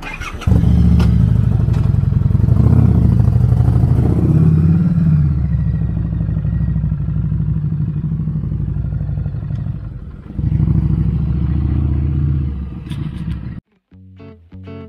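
Harley-Davidson Street 500 V-twin engine pulling away from a standstill and running under way, its note dipping briefly about ten seconds in and picking up again. It cuts off abruptly near the end, where guitar music begins.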